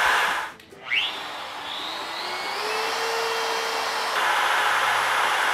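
A trim router's motor running, cutting out briefly about half a second in, then spinning back up. A whine rises in pitch over about two seconds and settles into a steady high-speed shrill whine, which grows louder at about four seconds.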